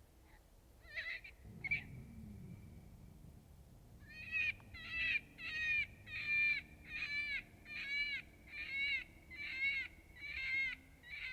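Electronic predator call playing a cottontail rabbit distress sequence: a few scattered squeals, then from about four seconds in a steady series of shrill, wavering cries, roughly two a second, the sound of a rabbit in trouble used to draw in a bobcat.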